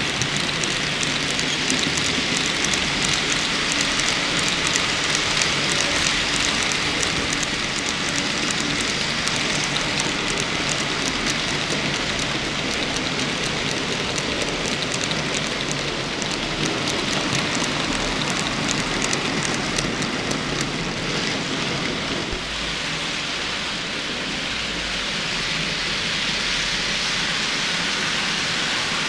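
N-scale model freight train running past: a steady rattling hiss of small metal wheels on the track, with rapid fine clicks through much of it and a faint hum in the first few seconds.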